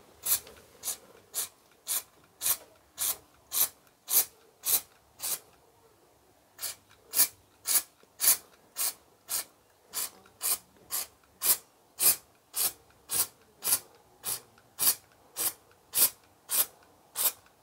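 Aerosol anti-chip (stone-chip) spray can hissing in short, evenly spaced bursts, nearly two a second, as black coating is dabbed onto a car's sill edge. The bursts pause for about a second near the middle, then resume.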